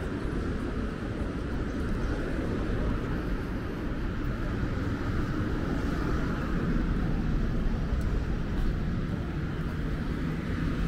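Steady road-traffic noise from a busy city street, with no single vehicle standing out.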